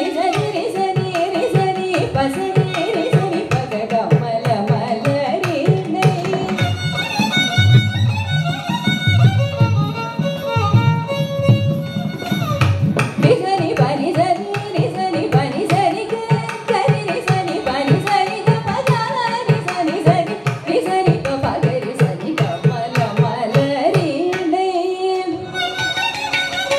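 Carnatic music in raga Hamsadhwani: a woman singing ornamented, gliding phrases, a violin following her line, and a mridangam playing dense, steady strokes. The mridangam pauses briefly near the end.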